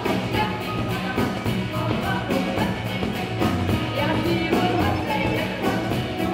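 Live band music with a steady drum beat, two women singing into microphones over the band, recorded through the camera's own microphone.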